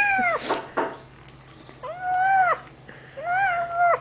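Kitten giving short, arching meow-like calls with its face in the food bowl as it eats, three in all: one at the start, one about two seconds in and one near the end.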